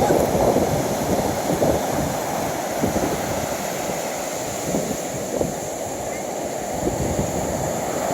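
Surf breaking and gusty wind buffeting the microphone: a steady wash of noise as rough storm weather comes ashore.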